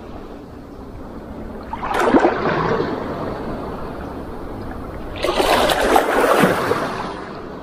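Shallow sea water sloshing and lapping, with two louder surges of small waves, about two seconds and five seconds in.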